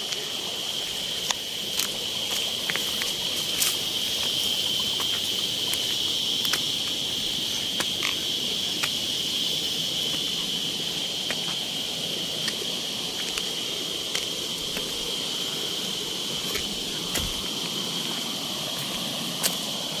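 Steady, high-pitched insect chorus droning without a break, with scattered light clicks over it.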